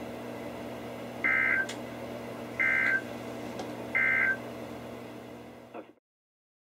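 Three short bursts of warbling digital data tones, about 1.4 seconds apart: the Emergency Alert System end-of-message code sent after a NOAA Weather Radio warning, heard over a steady background hum. The audio cuts off about six seconds in.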